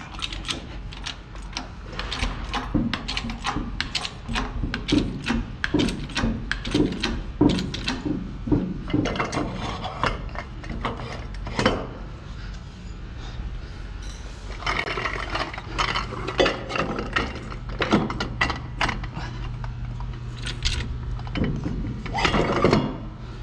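Repeated metallic clicking, ratcheting and clanking of hand tools and steel parts while a heavy machine is jacked up and set on moving skates, with a steady low hum for a while in the second half.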